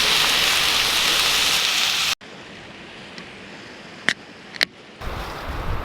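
Meat for Korean barbecue sizzling on a grill: a loud, even hiss that cuts off suddenly about two seconds in. A quieter stretch follows with two sharp clicks about half a second apart, then a low rumble near the end.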